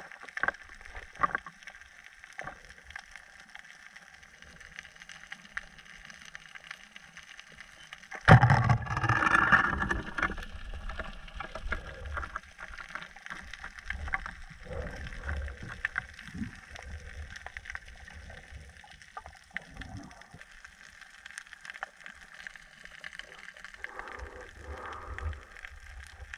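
Water picked up by a camera underwater: faint clicking and crackling, then about eight seconds in a sudden loud rush of gurgling water that settles into a low, uneven sloshing.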